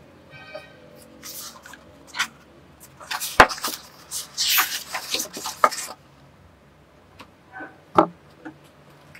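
A paperback sketchbook opened and its paper pages turned and handled. A cluster of paper rustles and sharp taps falls in the middle, the sharpest about three and a half seconds in, with a few more taps near the end.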